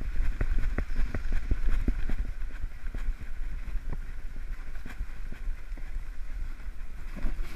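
Handling noise from a GoPro camera strapped to a small dog's back as the dog moves about: a steady low rumble of fur and strap rubbing on the camera, with irregular light ticks and knocks.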